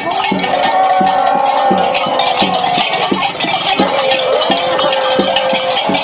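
Many cowbells worn by masked Careta revellers clanging and jangling continuously as they run and dance, over a steady beat of low knocks about two to three times a second.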